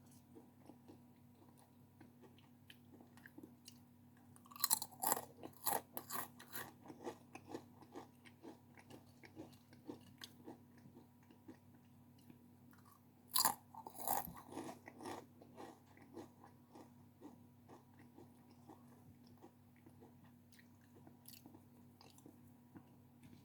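Close-miked bites into something crisp, twice, each followed by a run of crunchy chewing that tapers off over a few seconds, with soft chewing between.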